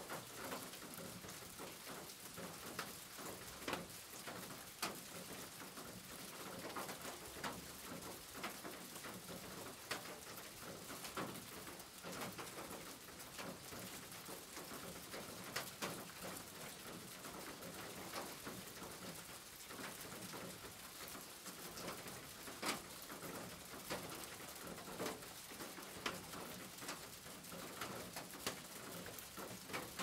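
Steady rain on a corrugated tin roof, with irregular sharp drop hits on the metal, and a bird calling through it.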